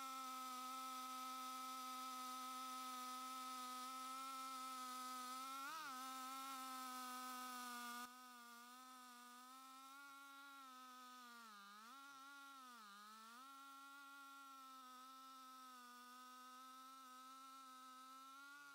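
Stihl MS 880 chainsaw, a big single-cylinder two-stroke, running at full throttle in a long milling rip through a red oak log: a faint, steady high buzz. It drops in level about eight seconds in, and its pitch sags briefly twice a few seconds later as the engine bogs under the load of the cut.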